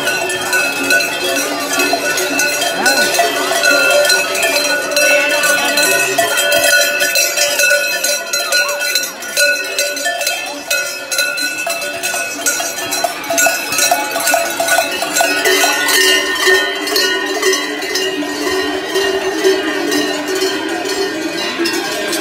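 Many large cowbells clanging together without pause, worn by masked carnival figures walking in procession; the jangling grows busier about halfway through.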